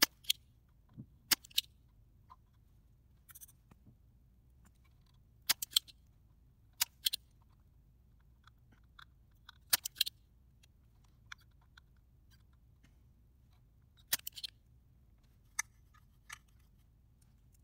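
Spring-loaded desoldering pump (solder sucker) being cocked and fired at solder joints on a circuit board: a dozen or so sharp plastic clicks and snaps spaced a few seconds apart, often in quick pairs.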